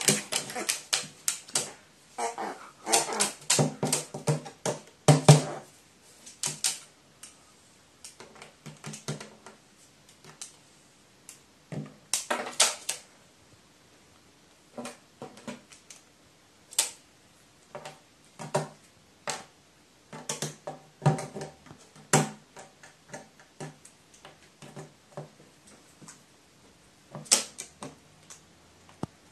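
A crow's short nasal calls for the first five seconds or so, then irregular sharp taps and clicks as it pecks at the metal sheet under its feet and flicks small objects across it.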